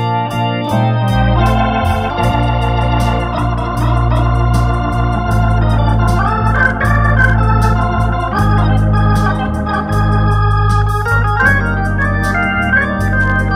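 Hammond T500 tonewheel organ playing a slow pop ballad: sustained chords over held bass notes that change every few seconds, with a light regular ticking beat on top.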